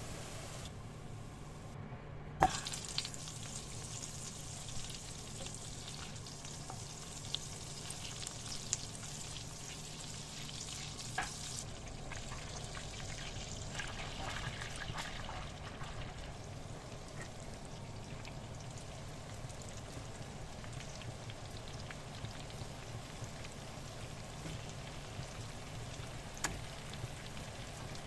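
Butter and onion paste frying in a non-stick frying pan: a steady sizzle while a spatula stirs. There are a few sharp taps, the loudest about two seconds in.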